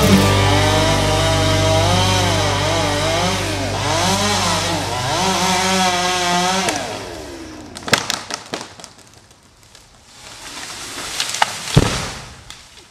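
Chainsaw running and cutting, its pitch rising and falling repeatedly as the throttle works, then fading out about seven seconds in. After that come scattered sharp knocks and cracks, the loudest near the end.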